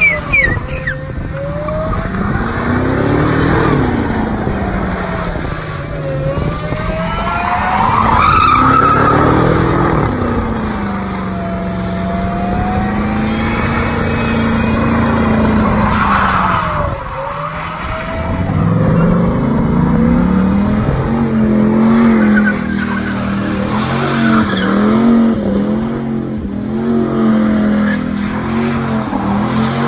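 Pickup truck V8 engines revving hard through burnout donuts, the revs swelling and falling every few seconds, with tyres squealing and skidding on pavement. From about two-thirds of the way in, the revs hold high and flutter rapidly.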